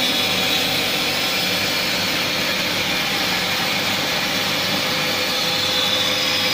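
CNC curve band saw running, its blade cutting a curved line through a thick wooden board with a steady, even machine noise.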